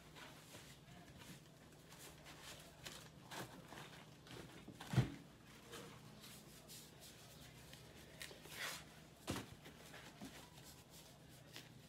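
Fresh corn husks being peeled off the ears by hand: faint rustling and tearing of the green leaves, with a sharper knock about five seconds in and another near nine seconds.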